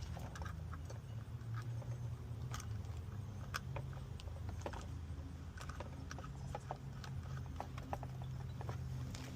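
Scattered light clicks and taps of hoses, couplers and fittings from an A/C recharge gauge kit being handled and put together, over a steady low hum.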